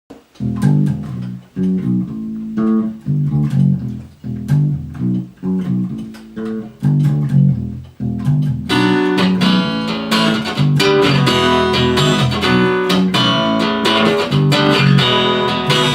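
Instrumental intro of a song: a picked guitar riff of separate low notes. About halfway through, the rest of the arrangement comes in and the music fills out and stays loud.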